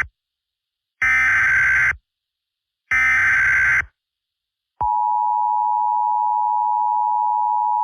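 Emergency Alert System data bursts: harsh, buzzy digital header tones in one-second bursts about a second apart, two full bursts here. About five seconds in they give way to the steady, piercing two-tone EAS attention signal.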